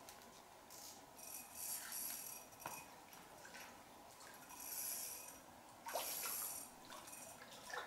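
A large hooked fish thrashing at the water's surface as it is played on the line, in three or four short bursts of splashing.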